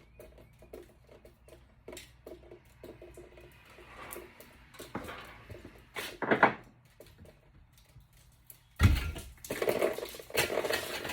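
Scattered light clicks and knocks, with a heavy thump about nine seconds in, then a couple of seconds of rattling clatter.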